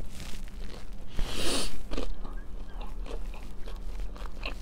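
Close-up chewing of a bite of chicken samosa, with small wet mouth clicks and crunches throughout. There is one louder noisy rush a little under a second long about a second and a half in.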